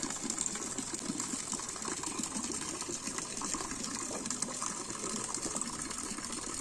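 Fountain water splashing steadily into its stone basin.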